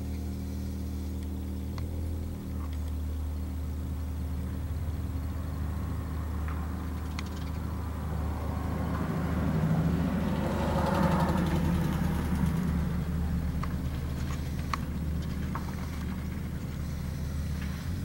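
Steady low hum of a car engine running nearby, swelling louder from about eight to thirteen seconds in and then easing back, with a few faint ticks.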